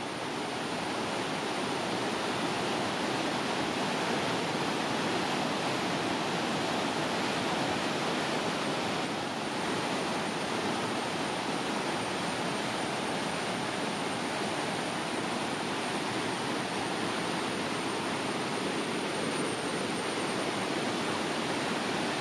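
A rocky forest stream in monsoon flood, cascading over rock ledges in a steady rush of whitewater.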